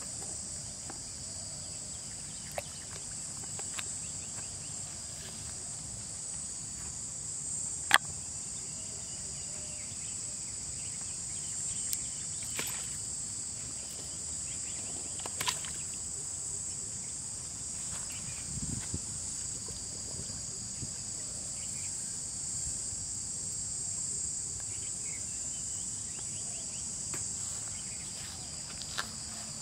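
Steady high-pitched insect chorus, an unbroken shrill buzz, with a few sharp clicks, the loudest about eight seconds in.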